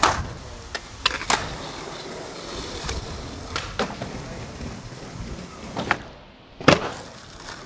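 Skateboard wheels rolling on pavement, with several sharp clacks as the board pops and strikes the ground and a wooden ledge; the loudest clack, near the end, is the board landing.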